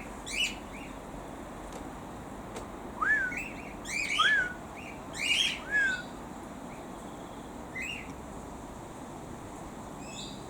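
Cockatiels calling: three rising-then-falling whistled contact calls in the middle, with shorter chirps scattered before and after.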